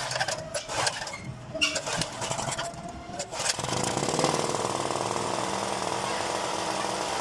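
Clicks and knocks. About three and a half seconds in, a small gasoline generator engine starts and keeps running steadily with a fast, even firing beat.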